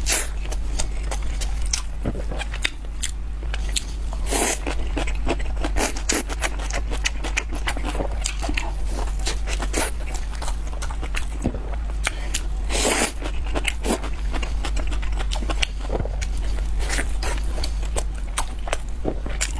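Close-miked eating: irregular crunchy bites and chewing crackles, over a steady low hum.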